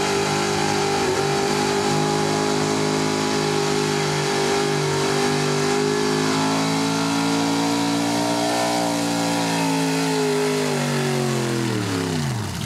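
Chevrolet small-block V8 in a 4x4 pickup running hard at high revs under load, pulling a sled. The pitch holds high and climbs a little midway, then the revs fall away steadily over the last couple of seconds.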